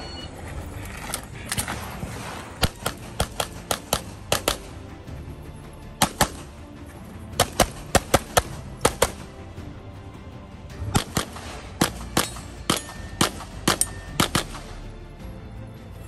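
Canik SFx Rival 9mm pistol fired rapidly, about thirty shots in quick strings, mostly close pairs, with short breaks about five and ten seconds in.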